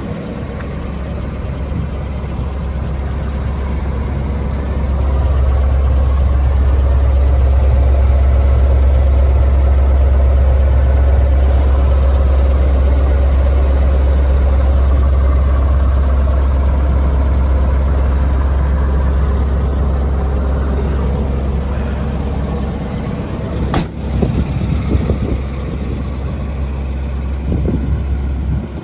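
Ford flathead V8 idling steadily, with a low, even note that is louder through the middle stretch. A single sharp click comes near the end.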